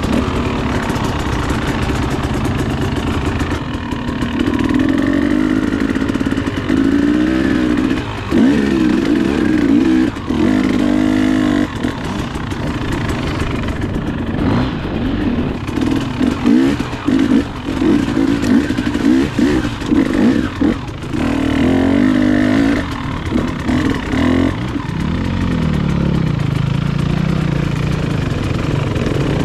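KTM dirt bike engine under load on a rough climb, its pitch rising and falling again and again as the throttle is opened and rolled off.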